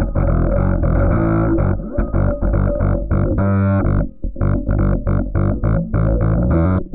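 A bass line played back through a heavy effects chain of filters, distortion ('Mangle'), a vowel filter and wobble, giving a dirty, distorted, filtered bass in a run of short notes, with a brief break about four seconds in.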